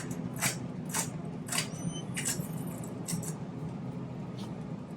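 Shopping cart with a car-shaped front rolling along, its wheels clunking over and over, about one to two clunks a second, over a steady low rolling rumble. The rhythm sounds like train wheels on a railroad.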